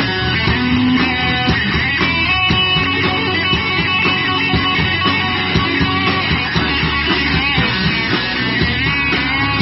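Live rock band playing through a PA: electric guitars over a steady drum beat.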